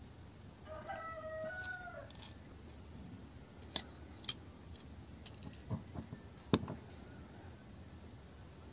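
A rooster crows once in the background, a call of about a second and a half. Then come several sharp clicks and taps, the two loudest about four and six and a half seconds in, as the plastic planetary gearbox housing and its cover plate are handled and fitted.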